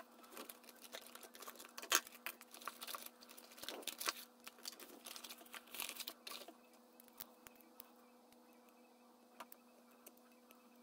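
Small clicks, scrapes and rustles of hands handling the metal body of a Zenza Bronica S medium-format camera. They come thick for the first six seconds or so, then thin out to a few scattered clicks.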